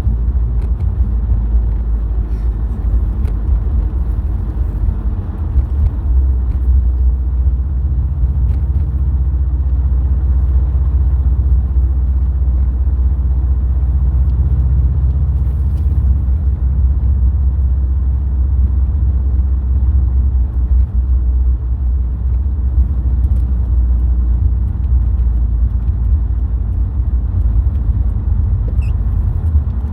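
Subaru WRX STI's turbocharged flat-four engine and tyres in a steady low rumble as the car drives along at an even pace.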